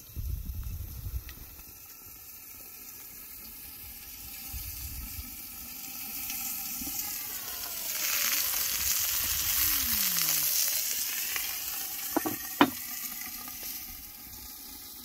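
Marinated chicken pieces sizzling on a round camping grill plate, the sizzle swelling in the middle. Two sharp clicks, the loudest sounds, come near the end.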